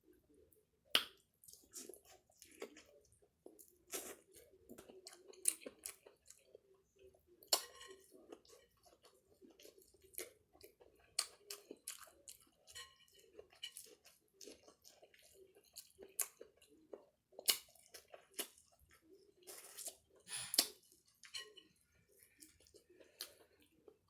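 Close-up chewing and mouth sounds of someone eating a meal, with irregular small clicks and a few louder sharp clicks along the way.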